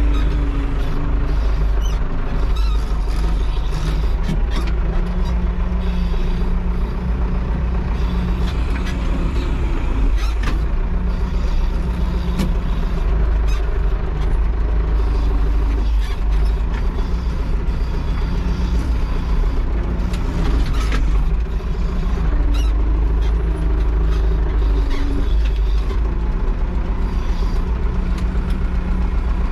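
Valmet farm tractor's diesel engine running steadily, with a few short knocks and clatters along the way.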